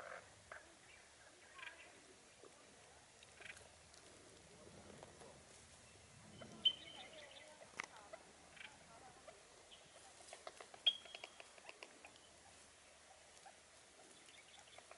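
Faint pecking and rustling from Taiwan bamboo partridges foraging in grass, with scattered soft clicks and two short, high chirps, one about halfway through and one a few seconds later.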